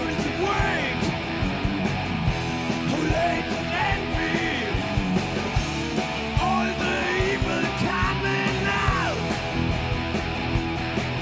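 Heavy rock band playing live: distorted electric guitars, bass guitar and drums, with a high lead line that bends up and down in pitch for most of the passage.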